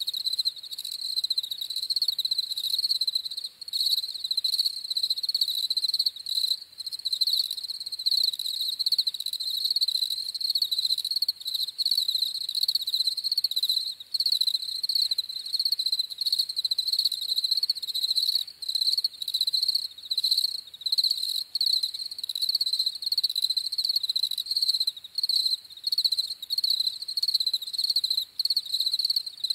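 A chorus of European field crickets (Gryllus campestris) chirping continuously, a steady high-pitched pulsing trill from many insects at once.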